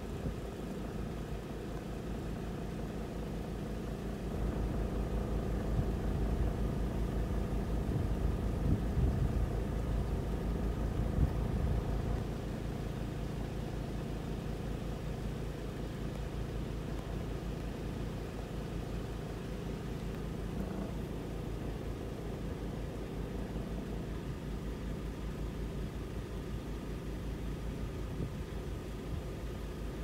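Vehicle engine idling steadily, swelling louder for several seconds early on and then settling back.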